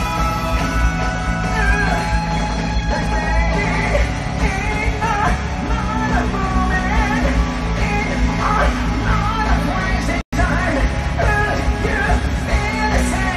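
Live rock band playing loud in an arena, with a male lead singer. It is heard from among the audience. The sound cuts out for an instant about ten seconds in.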